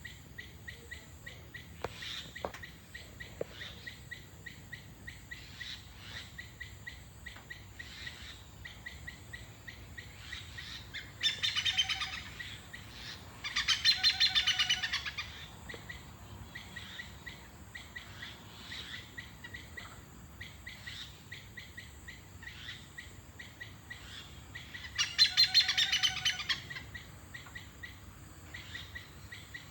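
A bird calling with short, steady repeated chirps, broken by several louder bursts of fast trilled notes lasting a second or two each, about a third of the way in, again just after, and near the end.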